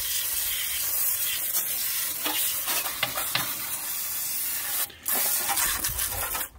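Water from a garden hose's pistol-grip spray nozzle hitting the underside of a riding lawn mower and splashing, a steady hiss. It stops for a moment about five seconds in, then starts again.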